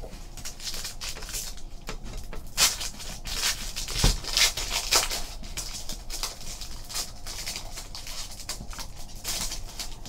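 Foil wrapper of a Donruss basketball card pack crinkling and tearing as it is handled and opened by hand, in short crackly bursts, loudest about a third of the way in and again near the end.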